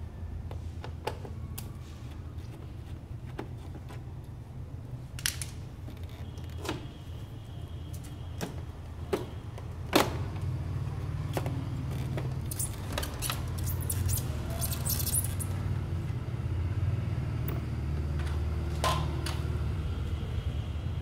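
Scattered plastic clicks and rattles as a scooter's body trim is worked loose with a screwdriver and pulled off by hand, with the loudest snap about halfway through as the black trim piece comes free. A steady low rumble runs underneath and grows a little louder after the snap.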